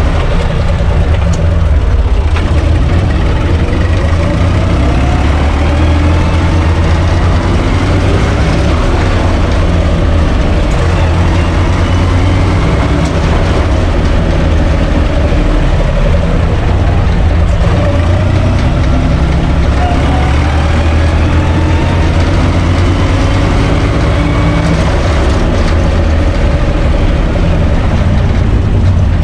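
UTB 445 tractor's four-cylinder diesel engine running loud and steady as the tractor drives along, heard from inside its open cab, with a fainter whine that drifts slowly up and down in pitch.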